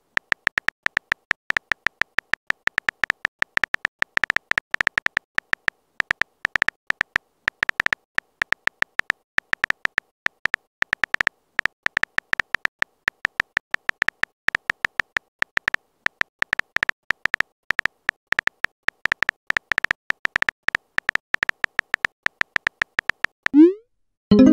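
Smartphone keyboard typing clicks, a rapid, irregular stream of short sharp taps as a text message is typed out letter by letter. Near the end comes a quick rising swoosh as the message is sent.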